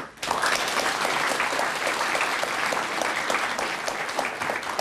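Audience applauding: many hands clapping together, starting abruptly just after the start and keeping up steadily.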